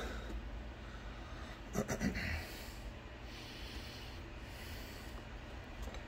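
Quiet handling of small wire terminals being pushed out of a plastic wiring-harness connector, with a short, louder burst of clicking and rustling about two seconds in, over a steady low hum.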